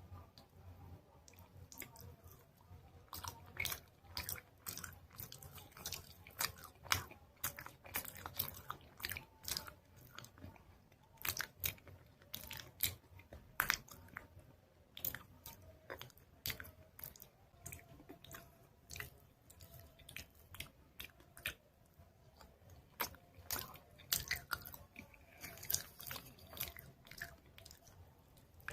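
Close-up crunching and chewing of chalk pieces coated in soft chalk paste: many crisp, irregular bites and crunches with mouth sounds between them.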